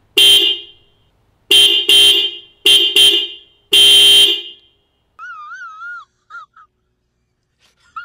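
The stock horn of a 2020 Toyota Prius Prime honked six times: a short blast, a quick double, two short toots and a final longer blast. It has a thin, high sound, the horn the owner calls weak and anemic. About five seconds in, a much quieter wavering tone follows.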